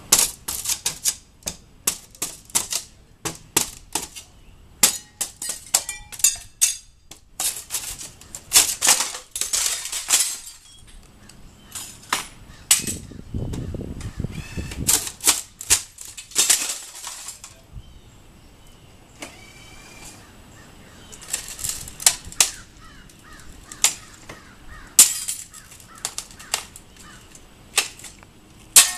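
Old window glass being broken out of its frames: irregular sharp cracks, knocks and clinks of glass shards, often in quick clusters.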